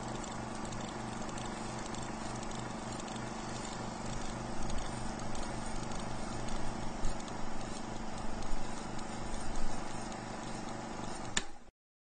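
Film projector running: a steady mechanical clatter of about four beats a second over hiss and crackle, with a click at the end where it cuts off.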